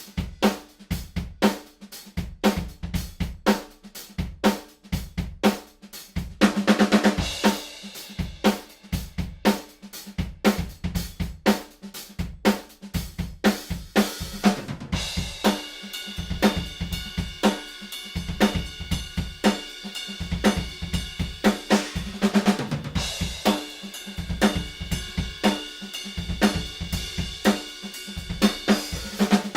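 Tama Starclassic Bubinga drum kit played in a steady groove: kick drum, snare and hi-hat, with Zildjian cymbals. Cymbal crashes come about a quarter of the way in and again about three quarters in, and cymbals ring on through the second half.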